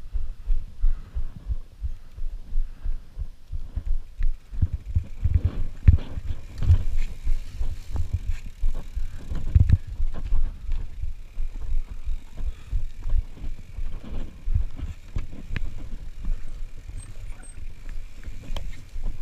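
Mountain bike riding down a rooty dirt trail: irregular low thuds and rumble as the wheels hit bumps, with sharper clicks and rattles from the bike. The jolts grow heavier a few seconds in as the bike picks up speed.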